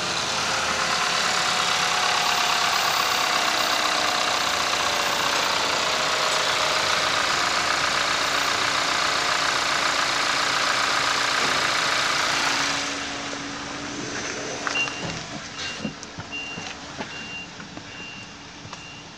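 Volkswagen 2.0-litre turbocharged petrol four-cylinder (TSI) idling steadily, heard close at the open engine bay. About two-thirds of the way through it becomes much quieter, and a dashboard warning chime starts repeating short high beeps.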